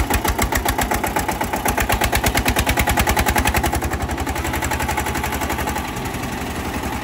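Homemade jugaad tractor's engine running with a loud, evenly spaced chugging beat, about ten beats a second, easing to a softer beat about six seconds in.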